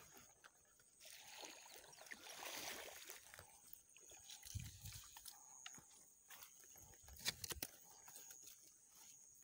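Quiet rustling and handling noise, with a soft swell in the first few seconds and a quick cluster of sharp clicks about seven seconds in.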